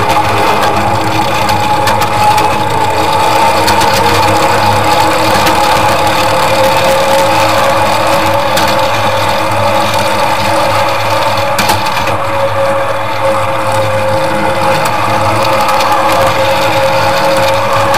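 Ride-on miniature garden-railway train running along its track, a steady mechanical hum with two held tones, mixed with wheel-on-rail noise and a few faint clicks.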